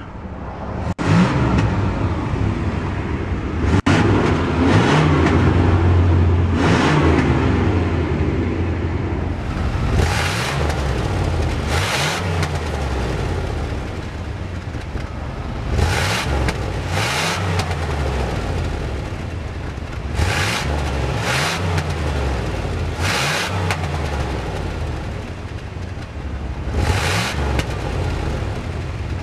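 A 1991 Chevrolet Caprice Classic's 305 cubic inch (5.0 L) throttle-body-injected V8 heard through its single exhaust, idling and revved up and let fall back several times in quick blips.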